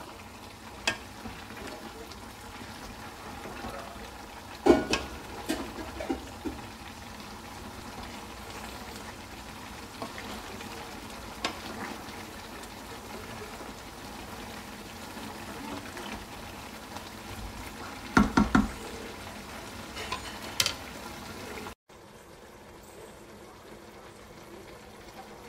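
Wooden spoon stirring a steaming pot of molokhia with chicken in a non-stick pot, the spoon knocking sharply against the pot now and then, loudest in clusters about five and eighteen seconds in, over a steady hiss from the cooking pot. Near the end the sound drops to a quieter, even hiss of the pot simmering.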